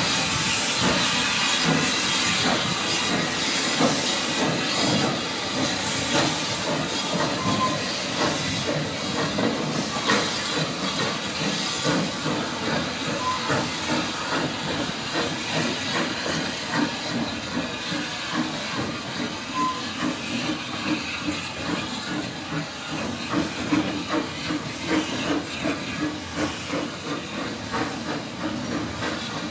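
Small steam tank locomotive pulling a short goods train away, its steam hissing over a quick rhythmic beat of exhaust. It grows gradually quieter as it draws off.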